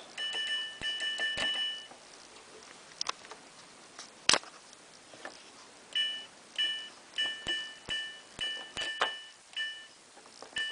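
Samsung WF8804RPA washing machine's control panel beeping as the program dial is turned step by step: a click and a short two-tone beep at each position. A quick run of beeps at the start, a single sharper click in the middle, then another run of about eight beeps, roughly two a second.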